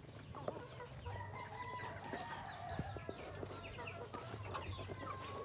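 A flock of chickens clucking and calling over one another, with a few scattered pecks or taps.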